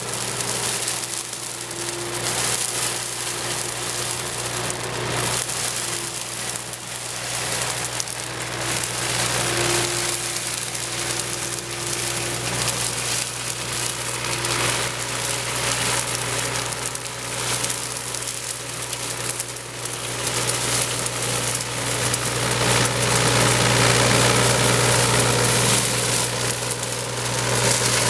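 Hydraulic flail mower (Raptor EX-30, 20-blade rotor) on a Yanmar ViO35 mini excavator, cutting and mulching tall grass and weeds: a dense hiss of the spinning flail shaft through the vegetation over the excavator's diesel engine running at a steady pitch. It gets a little louder in the last few seconds.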